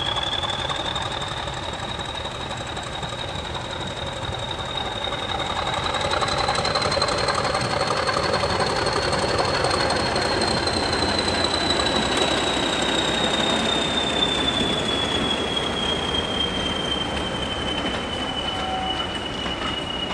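Class 40 diesel locomotive 40106, with its English Electric 16-cylinder turbocharged engine, pulling a train past at close range. Its turbocharger gives the class's trademark 'whistler' whine, a high tone that climbs in pitch as the locomotive comes closer and sinks again as it moves away. Under it runs the rumble of the engine and the train's wheels on the rails, loudest as it passes about halfway through.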